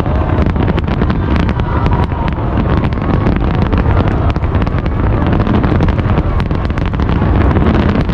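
A barrage of aerial firework shells bursting without a break. A heavy low rumble of booms is packed with many sharp cracks and crackles.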